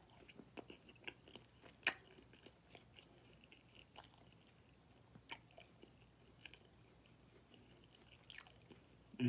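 A person chewing a mouthful of barbecue-sauced ribs and fries, soft and wet, with a few sharp clicks spread through.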